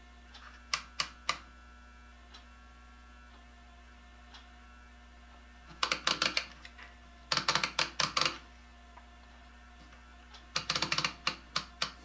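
Rotary selector switch of a Beckman HD100 digital multimeter clicking through its detent positions as it is turned. There are three single clicks about a second in, then quick runs of clicks at about six, seven and a half and eleven seconds.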